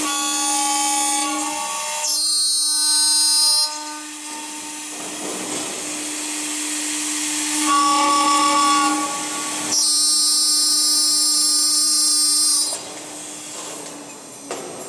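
Aluminium profile CNC machining center's spindle running with a steady whine while its cutter drills and mills the aluminium profile. The cutting comes in several loud, shrill spells of a few seconds each, with quieter stretches between them.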